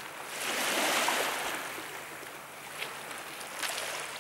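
Small waves washing on the beach: one wash swells about a second in and then settles into a steady low hiss of water, with a couple of faint clicks later on.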